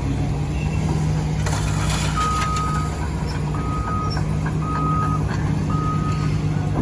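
A diesel engine running steadily, with a vehicle's reversing alarm starting about two seconds in and beeping at one pitch roughly once a second.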